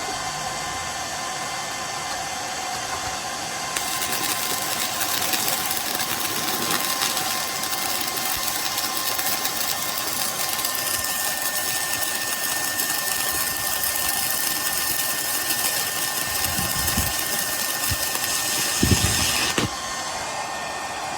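Handheld 130-amp stick welder burning a 3/32-inch 6013 rod at 130 amps: the arc strikes about four seconds in, crackles steadily for about sixteen seconds, then breaks off abruptly. The welder's cooling fan whirs throughout, with a few low knocks near the end.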